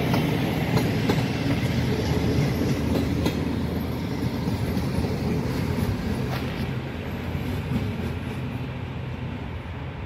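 A diesel-hauled passenger train rolling past, its wheels clicking over the rail joints now and then, gradually fading as it moves away.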